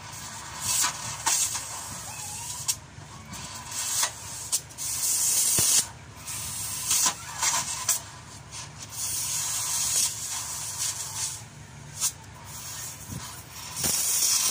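Electric arc welding on steel chassis metal: the arc crackles and hisses in spells of one to a few seconds, breaking off briefly several times and starting again.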